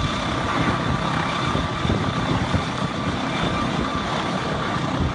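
Helicopter running close by: a steady, dense rotor and engine noise with a faint steady high whine.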